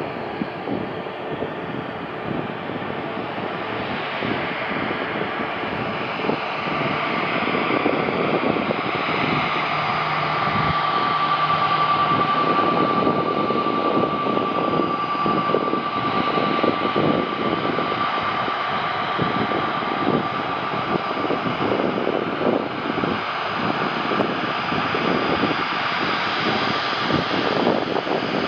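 Jet airliner engines: a broad rush that grows louder from about six seconds in and then holds, with a steady whine running through it.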